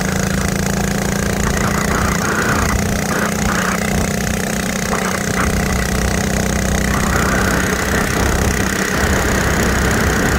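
Mini bike's small gas engine running as it is ridden along a paved road, its note holding fairly steady with small changes in speed.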